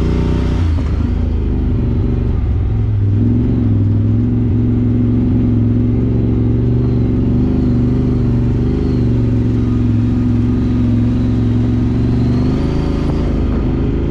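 Side-by-side UTV engine running close by at a fairly steady speed, its pitch shifting slightly a few times.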